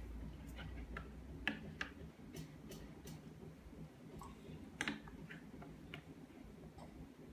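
Plastic spoons clicking and scraping against plastic bowls in scattered, irregular taps, the sharpest about a second and a half in and again near five seconds.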